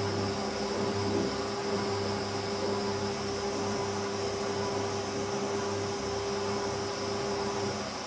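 Philco Ford WE952 front-loading washing machine at the start of its 60°C regular wash, the drum turning the laundry with a steady motor hum and hiss. A steady whine in the sound stops just before the end, and the machine gets slightly quieter.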